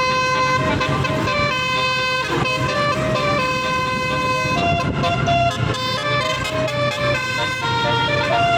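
Basuri telolet horn on a tour bus playing a tune: loud multi-tone horn notes stepping up and down in pitch every half second or so, over a steady low hum.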